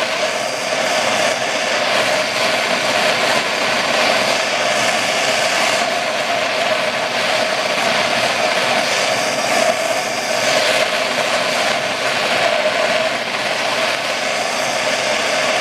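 Propane torch burning steadily with a rushing noise and a steady tone running through it, its flame played on an aluminum T-joint to bring the pieces up to the melting point of the brazing rod.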